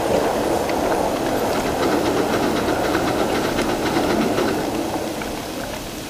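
A 1-inch-scale Little Engines Pacific live steam locomotive running along the track, its wheels rattling steadily over the rails. The sound grows quieter near the end.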